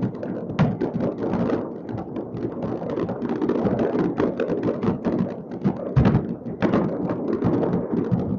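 Many fireworks going off across a city at once: a dense, unbroken barrage of overlapping bangs and crackles, with a few louder bangs standing out, one about six seconds in.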